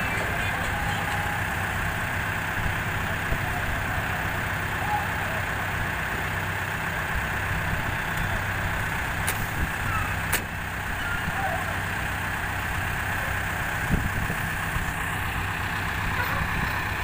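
Diesel engines of Escorts Hydra mobile cranes running steadily while they hold a heavy load off a trailer, with two sharp clicks about nine and ten seconds in.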